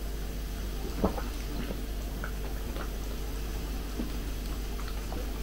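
Soft sips and swallows of tea from a mug over a steady low hum, with a sharp click about a second in and a few faint ticks after it.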